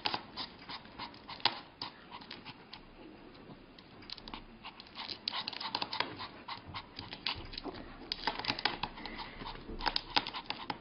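Pomeranian puppy's claws and paws tapping and scraping on a glass tabletop in quick, irregular clicks. The clicks thin out for a few seconds, then come busier again in the second half.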